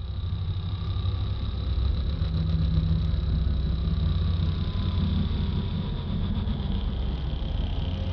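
Sci-fi UFO sound effect: a steady, dense low rumbling drone with a thin high whine above it. It swells up over the first couple of seconds, and the whine sinks slightly in pitch near the end.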